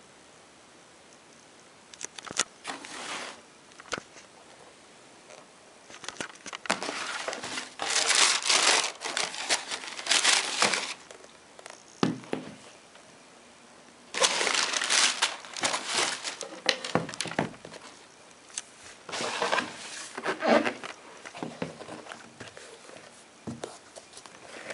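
Paper packing from a shoe box crinkling and rustling in several irregular bursts as it is pulled aside and handled, with a few light knocks from the box and shoes in between.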